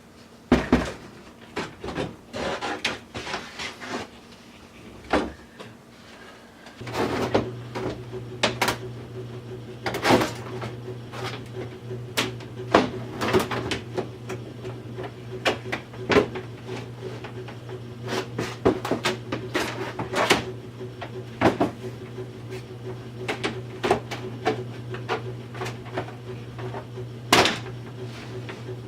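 Repeated knocks and clatter of assembly work on a wooden shelf-unit enclosure, with a steady low hum starting about seven seconds in.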